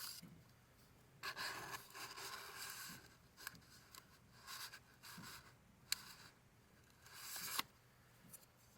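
Paper being handled at close range: several short stretches of sliding and rustling paper, with two sharp clicks.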